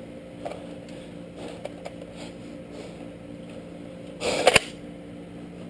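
Low steady hum with faint scattered movement sounds, broken about four seconds in by one brief, loud clatter with two sharp knocks.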